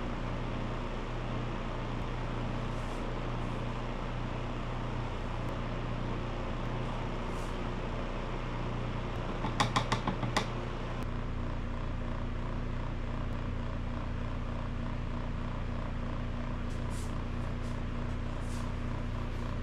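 Steady whirring room noise with a low hum. About halfway through comes a quick rattle of several clicks as a paintbrush is worked against its plastic rinse cup.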